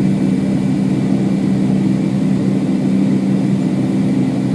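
Steady drone of a Boeing 757-200's jet engines and rushing air heard inside the passenger cabin during the climb after takeoff, with an even low hum running underneath.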